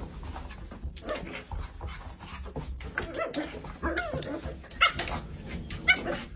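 A dog giving a series of short, high-pitched calls, mostly between about three and six seconds in.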